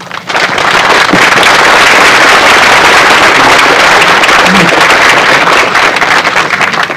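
Audience applauding loudly, a dense clatter of many hands clapping. It swells within about the first second and thins out near the end.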